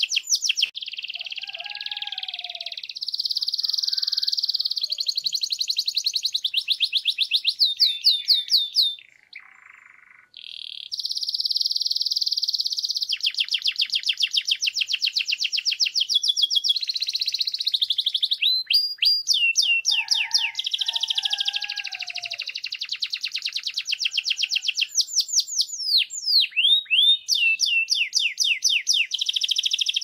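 Male canary singing a long song of rapid trills and fast repeated high notes, one phrase following another, with a brief pause about nine seconds in.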